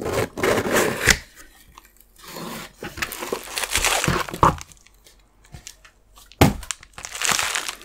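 Cardboard mailer box being opened and a bubble-wrap pouch of supplies lifted out and handled, giving tearing, crinkling and rustling in several bursts. A sharp knock comes a little over six seconds in.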